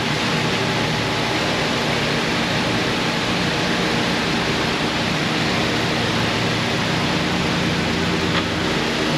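Steady, even rushing noise with a faint low hum underneath, holding a constant level throughout.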